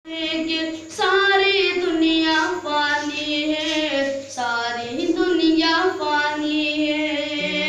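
A boy singing a naat unaccompanied, in long held notes that bend in pitch.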